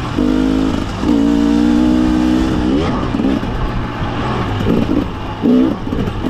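Husqvarna TE300 fuel-injected two-stroke dirt bike engine under riding throttle. It holds a steady pitch for a couple of seconds, then revs up and down in quick sweeps as the throttle is worked.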